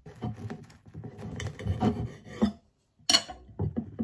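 A knife sawing back and forth through a crisp sandwich, rasping and crunching through the bread and the crisps inside, with a sharp click about three seconds in and a few lighter ticks after it.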